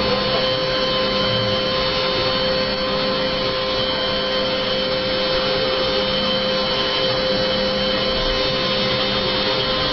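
CNC router spindle running steadily: a constant whine with several fixed pitches over a steady rushing noise that does not change.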